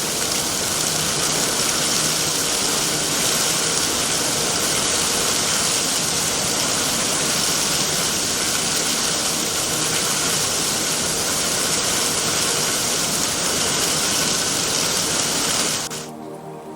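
Loud, steady rush of water, like a heavy downpour or falling water. It starts suddenly and cuts off abruptly shortly before the end.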